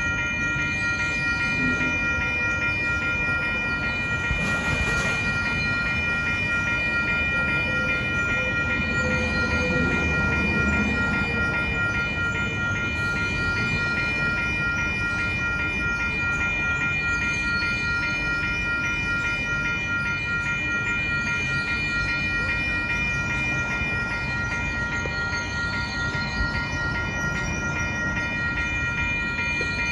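Railroad crossing warning bell ringing rapidly and steadily while the signals are activated for a test with no train present, over a steady hum of traffic.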